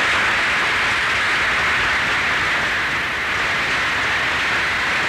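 Steady hiss of an old archival sound recording, a noise floor that stays level through a pause in the speech.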